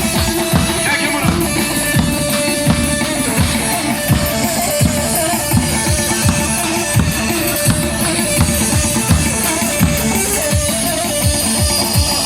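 Dance music with a steady, quick drum beat under a plucked-string melody.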